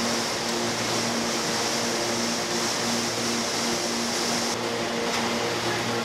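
Steady machinery hum and water noise of a fish cake production line, with a high hiss that cuts off about four and a half seconds in.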